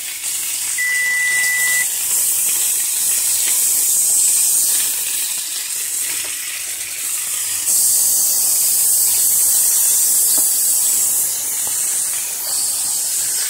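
Meat sizzling hard on a hot ridged grill pan, a steady high hiss that grows louder about eight seconds in as the pieces are turned with tongs.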